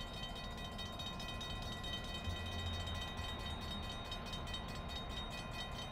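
EMD GP9 locomotive's 16-cylinder 567 two-stroke diesel running at low throttle as it moves slowly with a string of tank and hopper cars: a steady low rumble with a faint steady whine above it.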